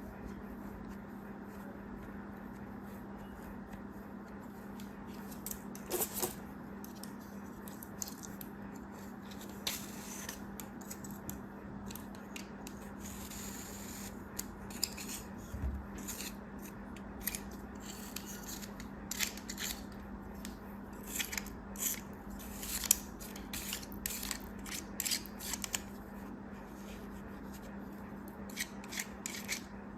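Scissors snipping and plastic packaging crinkling as a package is cut open: a run of short, sharp clicks and rustles with a brief hissing rustle in the middle, over a steady low hum.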